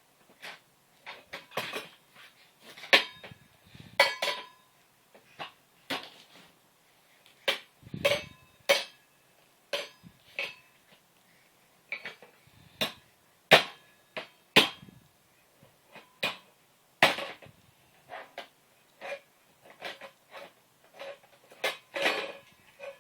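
Irregular taps and clinks of hard objects being struck, about one or two a second and uneven in strength, some leaving a short ring.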